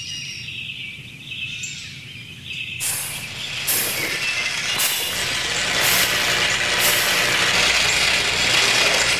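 Faint bird chirps over a low rumble, then about three seconds in a loud rushing noise sets in suddenly and keeps building, swelling in several surges.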